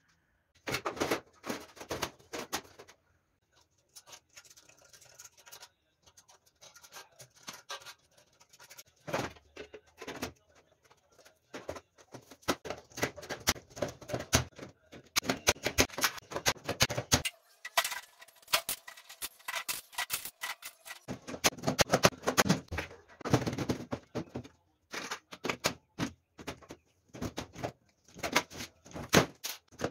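A hand pop-rivet gun fastening galvanized sheet-metal body panels, making rapid sharp metallic clicks in quick irregular runs.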